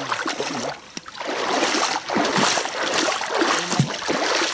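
Feet wading through shallow, muddy water: a run of uneven splashes that drops off briefly about a second in, then picks up again.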